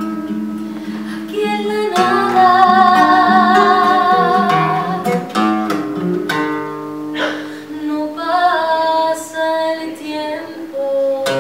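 A nylon-string acoustic guitar being played with a woman singing over it; the voice comes in about two seconds in, with long wavering held notes.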